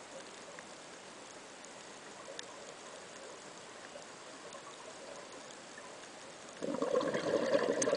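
Underwater, a faint steady hiss, then about six and a half seconds in a scuba diver's exhaled breath bursts from the regulator as a loud, irregular rush of gurgling bubbles.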